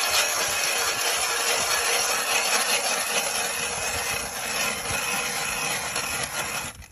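Powered ice drill running and boring into ice, a dense grinding with a steady motor tone, stopping abruptly at the end.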